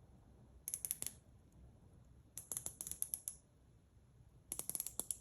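Rotating bezel of a Mondia Swiss automatic wristwatch being turned, making three short runs of rapid, light, high-pitched clicks.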